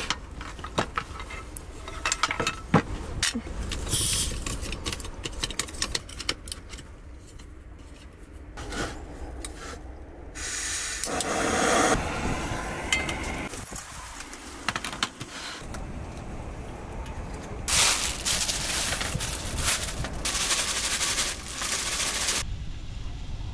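Camp-cooking gear being handled on a wooden counter: scattered clicks, knocks and scrapes. Two stretches of steady hissing come later.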